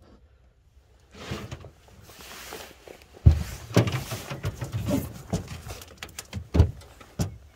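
Close handling noise: irregular knocks, bumps and rustling, with a heavy thump about three seconds in and another a little over six seconds in.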